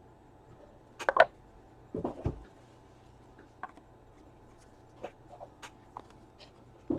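Handling of a trading-card box and its packaging: a few short taps, clicks and rustles. The loudest cluster comes about a second in, with more around two seconds and faint ticks after.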